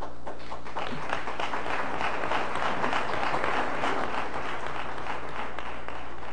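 Audience applauding, building to its fullest a few seconds in and thinning out near the end.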